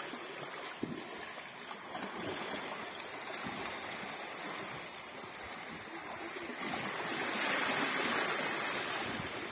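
Sea waves washing in a steady rush, swelling louder about seven seconds in, with some wind on the microphone.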